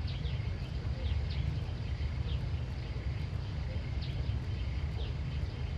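Small birds chirping: short, high, downward-sweeping chirps repeated every half second to a second, over a steady low rumble.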